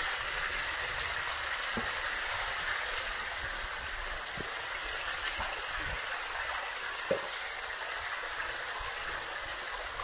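Creek water flowing steadily, an even rushing hiss, with a few faint knocks and one sharper knock about seven seconds in.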